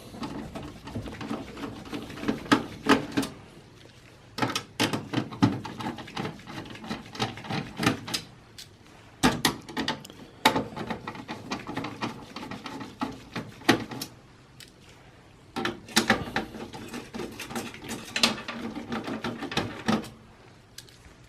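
Phillips screwdriver backing out motherboard screws in a desktop PC case: a run of small clicks and scrapes in bursts, with short pauses between screws.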